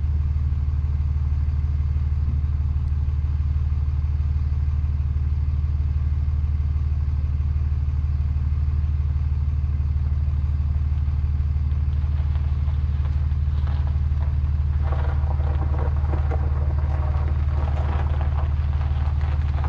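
An engine idling steadily with a low drone. From about twelve seconds in, a car's tyres crunch and clatter over a gravel and dirt driveway as it rolls slowly in, growing louder near the end.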